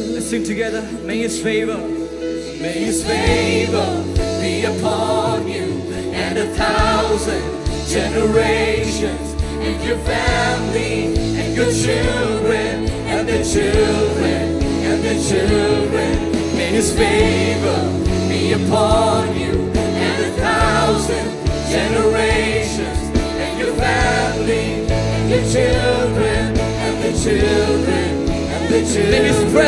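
A woman singing a contemporary worship song into a microphone, backed by a band, with the bass coming in about three seconds in.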